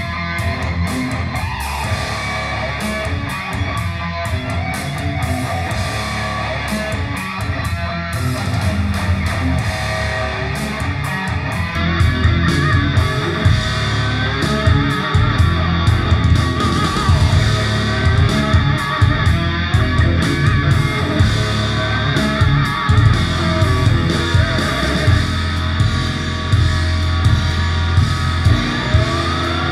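Guitar-driven rock music playing through stereo bookshelf speakers in a room. About twelve seconds in, playback switches to the Microlab Solo 7c 2-way speakers, and the music gets louder with fuller bass.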